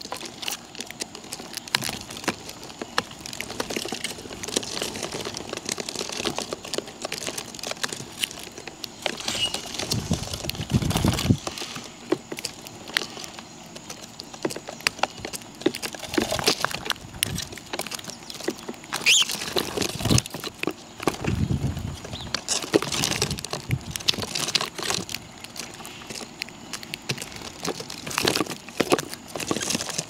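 Birds feeding on scattered food: an irregular patter of pecking taps on a hard surface, with a few louder dull bumps.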